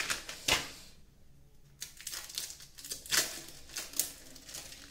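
Plastic wrapping of processed cheese slices crinkling as the pack is handled and the film is peeled off a slice, in short irregular crackles.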